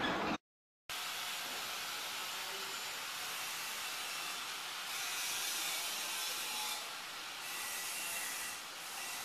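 A steady hiss of background noise, interrupted by a brief dropout to silence about half a second in.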